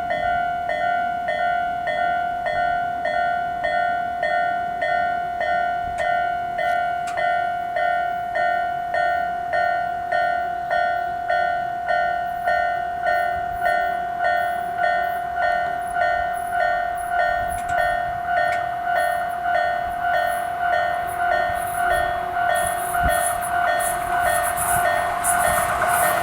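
Japanese level-crossing alarm: the electronic crossing bells ring in a steady, even repeating rhythm, a mix of a slow-tempo standard bell and an Isesaki Line-type bell sounding together. Near the end a Tobu 10000-series family electric train approaches and its running noise rises.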